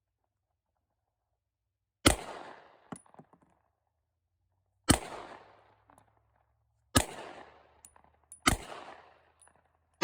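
Glock 29 10mm Auto pistol firing single shots at an uneven pace. The first comes about two seconds in, then three more one and a half to three seconds apart, with a fifth right at the end. Each shot is sharp and trails off in an echo.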